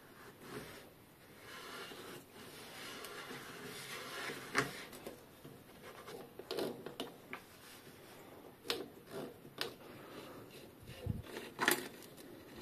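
A bottom bracket facing tool being handled in a bicycle frame's bottom bracket shell. First comes soft rubbing and scraping, then a series of sharp clicks and knocks as the metal tool is shifted, with a dull thump near the end.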